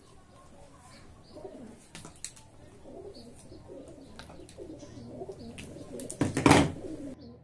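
Pigeons cooing softly in the background, with a few faint clicks as pliers work a cable and one louder, brief noisy sound near the end.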